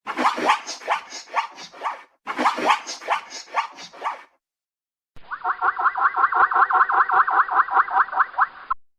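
Zebra calls: repeated barking, yelping pulses in three separate recordings cut together with short silences between. The first two are uneven runs of about three or four yelps a second lasting about two seconds each; the last is a steadier series of about five quick yelps a second lasting about three and a half seconds.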